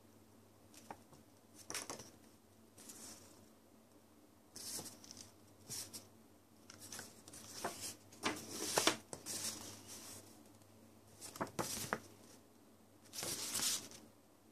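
Glossy paper inserts and a clear plastic CD case being handled: irregular rustles and swishes of paper, with a few sharp clicks among them.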